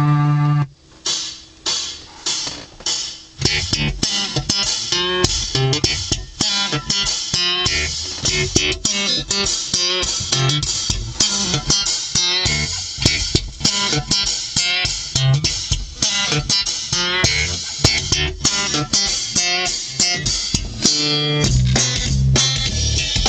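Guitar music with bass guitar and drums played through a car stereo: a stock head unit fed from an MP3 player by a cassette adapter, driving 6.5-inch Infinity front speakers and 6x9 Pioneer rear speakers with no added amplifier.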